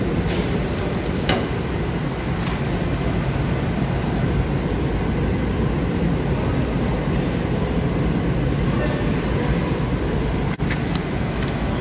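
Woodworking machinery running with a steady, loud hum and noise, with a few brief clicks on top.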